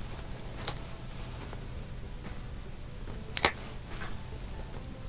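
Two sharp clicks, one just under a second in and a louder quick double click about three and a half seconds in, over a steady low hum.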